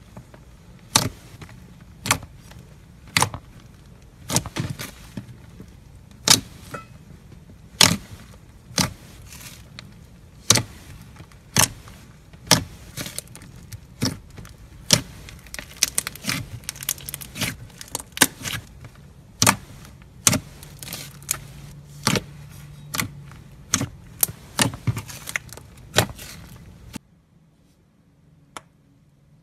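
Thick clay slime being pressed and kneaded by hand, giving sharp, irregular pops and clicks about once or twice a second as trapped air bursts out of it; the pops stop shortly before the end.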